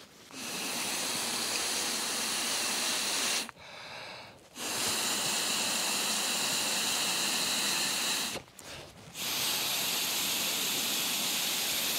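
A person blowing by mouth into the valve of an inflatable sleeping mat (a Litthing mat): three long, steady rushes of air, each about three to four seconds, with short pauses for breath between them.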